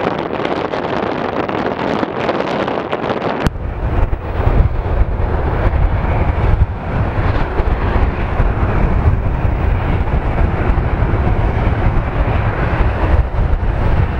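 Airbus A330 jet engines running at taxi power close by, a steady rushing noise. About three and a half seconds in, the sound changes abruptly to a strong low rumble with wind buffeting the microphone.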